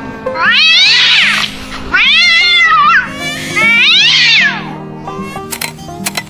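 Three drawn-out animal cries, each rising and then falling in pitch, over background music; a few sharp clicks near the end.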